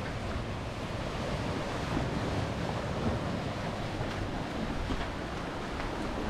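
Sea waves washing onto the shore, with wind buffeting the microphone in a steady low rumble.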